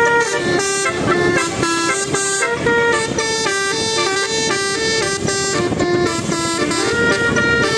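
Bus telolet horn, a set of multi-tone air horn trumpets, playing a quick tune whose notes step up and down several times a second, with a full, dense tone.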